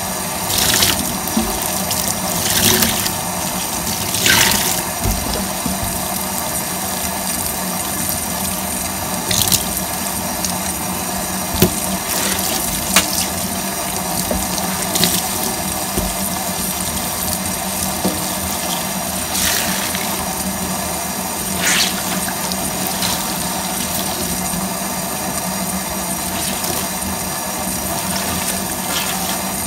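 Kitchen tap running steadily into a stainless steel sink while soaked sponges and a cloth are rinsed and squeezed under the stream. Every few seconds there is a short, sharper squelch or splash as water is wrung out.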